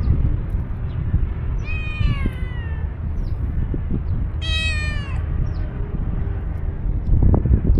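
Tuxedo cat meowing twice, two drawn-out meows falling in pitch about two and four and a half seconds in, over a steady low rumble. A dull knock near the end.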